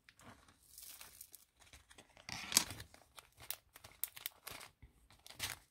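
Small plastic bags of diamond-painting drills crinkling as they are handled and opened: a run of short, irregular crackles, the loudest about two and a half seconds in.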